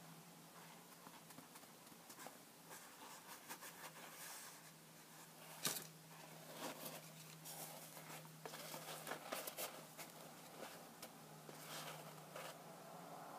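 Fingers handling a new Converse Chuck Taylor All Star II low-top canvas sneaker in its cardboard box: faint rustles and small taps, with one sharp tap about six seconds in.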